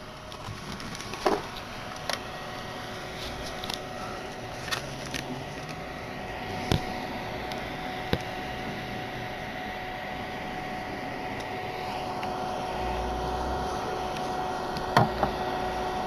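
Steady hum of a running thermoelectric mini fridge, its cooling fan whirring, with a few light clicks and knocks scattered through and a sharper pair near the end.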